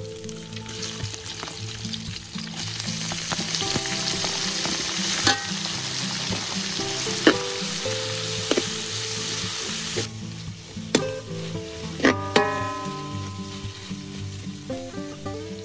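Chili and garlic sizzling in hot oil in a metal wok while pieces of boiled fish are stir-fried in it, the sizzle loudest from about three to ten seconds in. A metal ladle stirs and scrapes, striking the wok with sharp clinks several times, one near the end ringing briefly.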